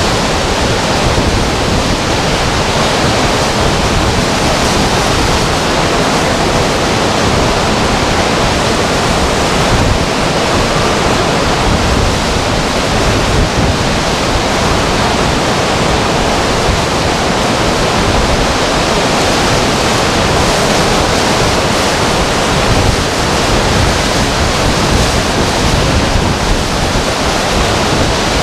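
Hurricane winds blowing hard across the microphone: a loud, steady rushing noise with small irregular surges.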